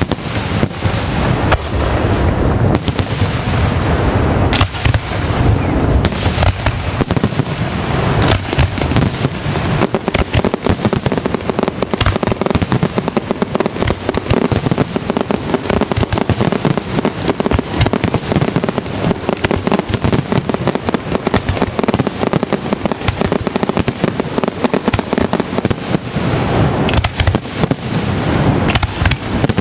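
Fireworks display going off in a dense barrage: many sharp bangs and cracks a second, overlapping without pause.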